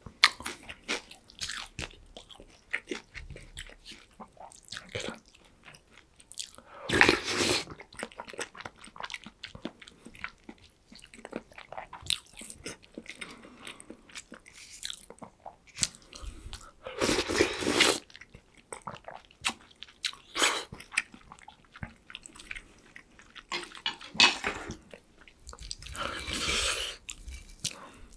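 Close-miked chewing and crunching of a meal of cold noodles and breaded pork cutlet, with many small wet clicks and three louder, noisier bursts lasting about a second each: one about a quarter of the way in, one past the middle and one near the end.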